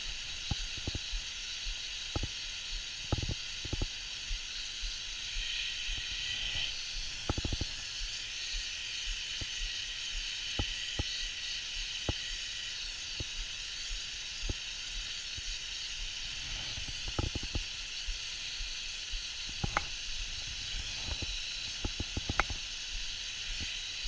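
Water mister spraying a fine mist with a steady hiss, broken by scattered sharp clicks and taps.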